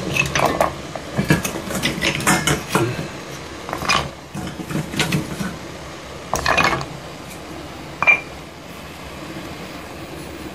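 Wooden oak bars being dropped and shifted in a stainless steel pot of boiling syrup: a run of quick knocks and clatters of wood against the pot, then scattered clusters of knocks, with one sharp, ringing metal clink about eight seconds in.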